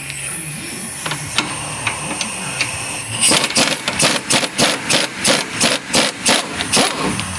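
A quick run of about four to five hammer blows a second on metal, lasting about four seconds and starting about three seconds in, as a suspension bolt is driven out.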